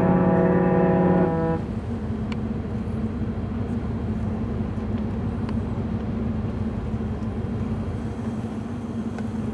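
A ship's horn blast, one loud steady multi-toned note, cuts off about a second and a half in. After it comes a steady low hum with a rushing noise of ship machinery and sea.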